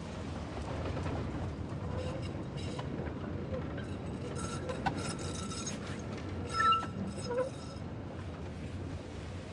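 Train running on the rails, a steady low rumble heard from inside the carriage, with a brief high squeal about six and a half seconds in.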